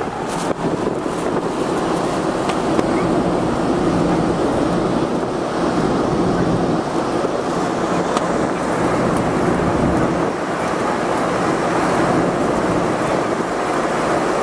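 Steady noise on the open top deck of a car ferry under way: wind rushing over the microphone, with the low hum of the ship's engines beneath.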